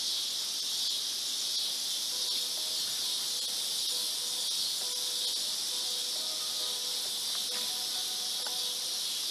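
Evening insect chorus in the field: a dense, steady high-pitched hiss.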